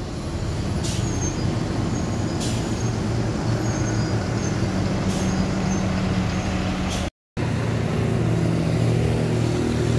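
Diesel engine of a large coach bus running steadily through a bend, a low even drone with a few brief hisses. The sound drops out for an instant about seven seconds in, and then the engine drone carries on.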